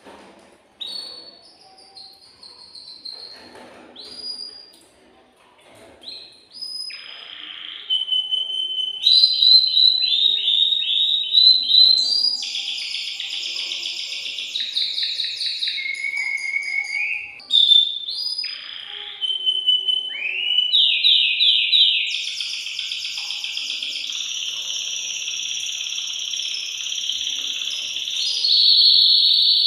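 Male canary singing, an excited male in breeding song: scattered short rising whistled notes at first, then from about eight seconds in a loud, nearly unbroken song of rapid trills and rolls with long held high notes.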